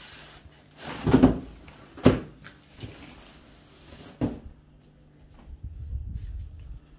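Large cardboard TV box being knocked and shifted as a plastic-wrapped television is pulled out of it: three dull knocks, about one, two and four seconds in, with rustling between them and a low rumble near the end.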